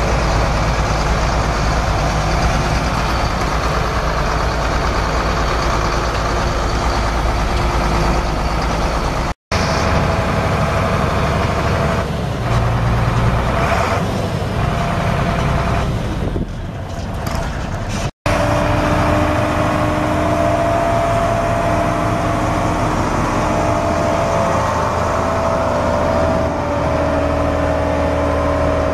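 International DT466 7.6 L inline-six turbo diesel of a dump truck running steadily, heard across several cut-together shots, with two brief silent breaks about nine and eighteen seconds in.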